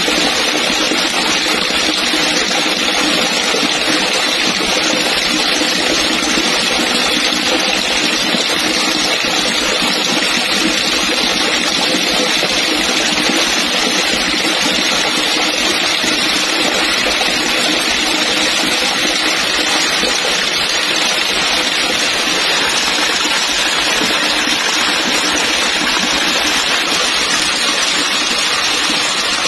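Heavy falling water splashing onto water without a break, a steady rushing hiss like a hard downpour.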